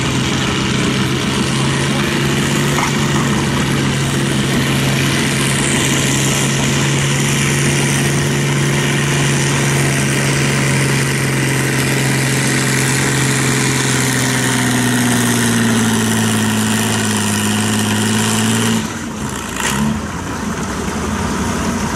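Farm tractor engine working hard under load as it pulls a weight-transfer sled. Its note holds steady, then slowly sinks in pitch as the engine bogs down under the sled. Near the end the note drops away abruptly as the pull ends.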